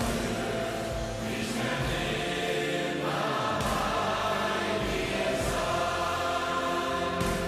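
A song sung by a choir over music, the voices holding long notes.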